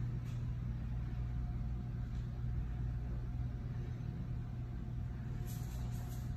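Steady low mechanical hum with a faint thin high tone above it. A few faint light ticks near the end.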